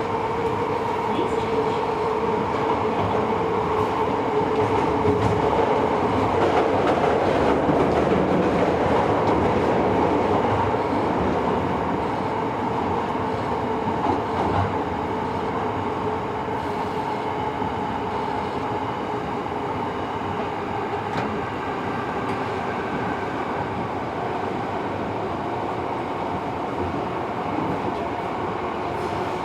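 Running noise inside a Tobu 70000 series train car on the underground Hibiya Line: a continuous rumble of wheels and motors with a steady hum under it. It grows louder over the first dozen seconds, then settles a little quieter.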